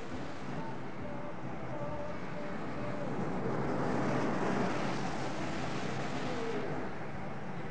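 A car driving up a wet street, its engine and tyre hiss on the wet pavement growing louder as it approaches, loudest about halfway through, then easing off as it slows to pull in at the curb.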